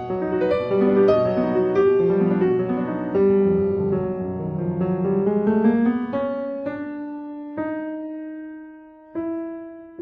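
Background music played on piano: busy chords for the first six seconds or so, then slowing to a few single notes that ring and fade.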